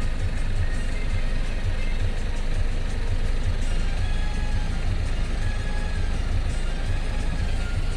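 Steady low engine rumble of vehicles at a railway level crossing.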